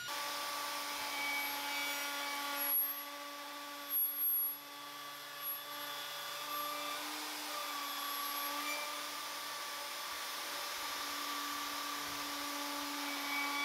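Festool plunge router with a surfacing bit running steadily in a router sled, flattening an end-grain walnut and maple cutting board. Its pitch dips slightly now and then, and a few short knocks come about three to four seconds in.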